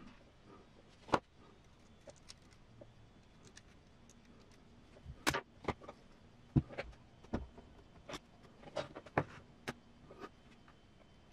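Irregular clicks and taps of small plastic gearbox parts and a lubricant container being handled and set down on a desk. One tap comes about a second in, and a busier run of knocks and clicks follows in the second half.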